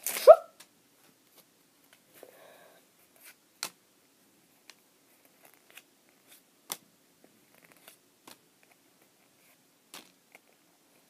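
Pokémon trading cards being handled: a short loud crinkle of the foil booster-pack wrapper at the start, then scattered faint clicks and snaps as the cards are flipped through one by one.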